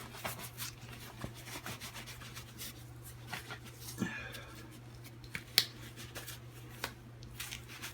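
A winter LED turn-signal glove rustling and rubbing as it is pulled onto a hand, with scattered small clicks and one sharper click about five and a half seconds in, over a steady low hum.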